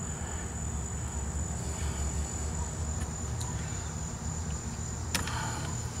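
Steady background of a continuous high-pitched insect trill over a low rumble, with a single sharp click about five seconds in.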